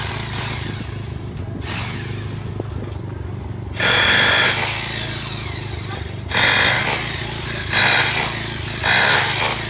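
A 3 kVA inverter generator runs with a steady hum while powering a corded rotary hammer drill. The drill hammers into a concrete paving tile in four short bursts, the first about four seconds in and the rest close together near the end, and these bursts are the loudest sound.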